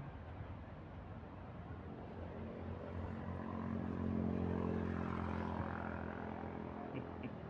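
An engine passes by, its steady hum swelling to a peak midway and then fading away.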